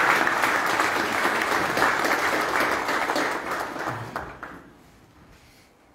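Audience applauding, a dense steady clapping that thins out and dies away about four and a half seconds in.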